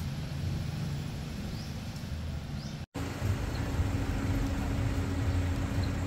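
Steady traffic rumble, then, after a cut about three seconds in, a van's engine running with a steady low hum.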